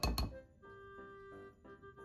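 Quiet background music of soft held notes. Right at the start, two sharp taps close a rapid run of taps.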